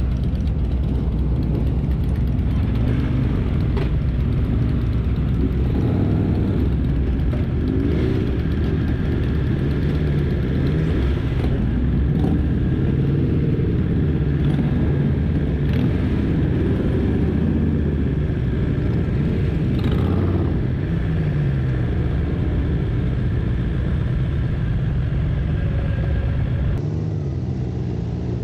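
Several motorcycle engines idling and revving at low speed, pitch rising and falling with the throttle; among them is the camera rider's BMW S 1000 XR.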